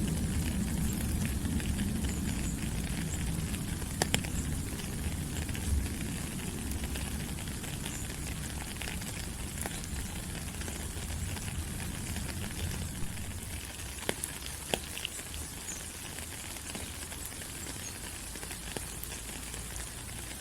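Steady rain falling on rainforest leaves, an even hiss with scattered sharper drop taps. A low rumble underneath fades away over the first several seconds.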